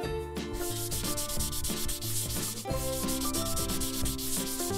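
Chalkboard eraser rubbing sound effect: quick, scratchy scrubbing strokes starting about half a second in, as chalk drawings are wiped off a board. Background music plays beneath.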